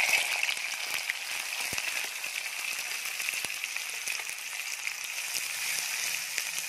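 Chopped onions and green chillies sizzling in hot oil in a clay pot. The sizzle bursts in loudly as they hit the oil, then carries on steadily.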